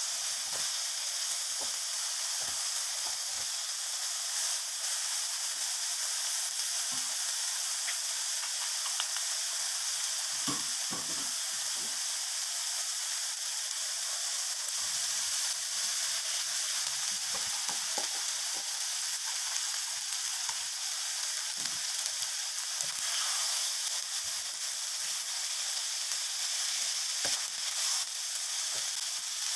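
Stir-fry sizzling steadily in a hot non-stick wok as a wooden spatula stirs it, with scattered soft knocks and scrapes of the spatula on the pan. About halfway through, cold cooked rice is tipped in and tossed through the frying sausage and chilli paste.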